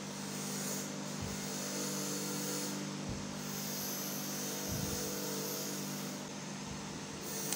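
A steady low droning hum, with a few soft low thumps.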